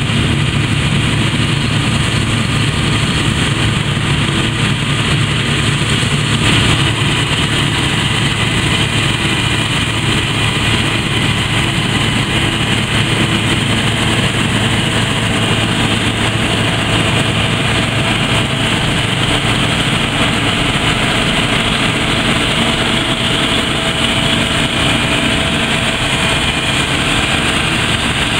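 Claas Lexion 460 combine harvester running steadily under load while cutting and threshing grain: a constant diesel engine hum mixed with the rush and whir of the header and threshing machinery. The tone shifts slightly about six or seven seconds in.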